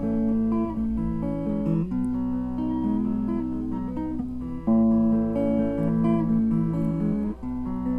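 Instrumental passage of a song: guitar playing chords that change every second or two over a steady low line, with no singing. The uploader says the song is tuned lower than usual.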